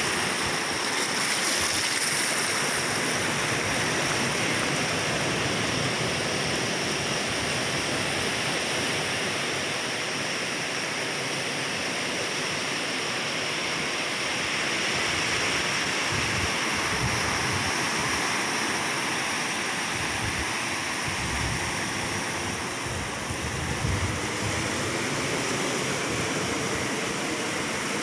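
Ocean surf breaking on a rocky reef, its foam washing over the rocks in a steady rushing wash.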